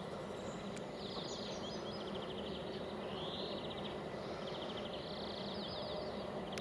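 Small songbirds giving repeated rapid trills, each about a second long, over a steady outdoor hiss.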